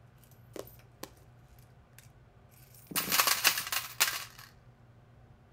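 A few faint clicks, then about three seconds in a loud rattling, jingling clatter lasting about a second and a half.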